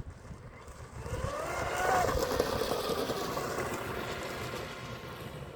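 Electric RC hydro boat running on the water, its motor whine rising in pitch to a peak about two seconds in, then falling and fading as the boat runs away.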